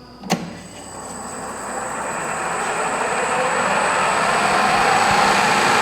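A click, then the machine's motor spins up, growing louder over about four seconds and running steadily with a thin high whine, as the counterbore is run into the mandrel.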